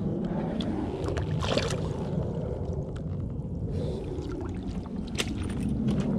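Small waves lapping along a rocky lake shore under a steady low rumble, with scattered knocks and rustles and a brief hiss about a second and a half in.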